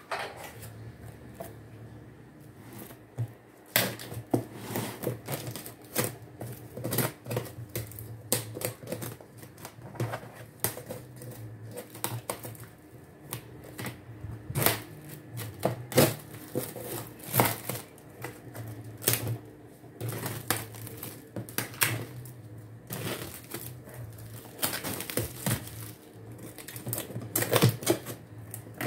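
Plastic stretch film crinkling and crackling as it is cut and pulled off a cardboard shipping box, in an irregular run of sharp clicks and rustles that grows denser near the end.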